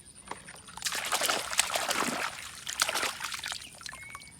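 Water splashing and trickling, dotted with small clicks, for about two seconds in the middle: toys being rinsed clean.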